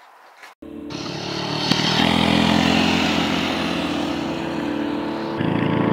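Mini bike engines running hard, cutting in suddenly just under a second in and growing louder over the next second.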